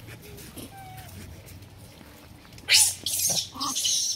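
Rhesus macaques calling: a faint short squeak about half a second in, then a loud run of harsh, noisy calls lasting about a second and a half near the end.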